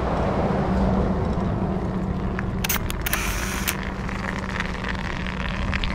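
Wind on the microphone and tyre noise from a bicycle riding over rough dirt ground: a steady rumble with a low hum under it, and a brief patch of crackling and clicking about three seconds in.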